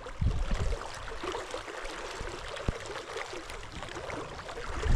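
Shallow river running over rocks, a steady rushing and trickling of water, with brief low rumbles near the start and again near the end and a single faint tick in the middle.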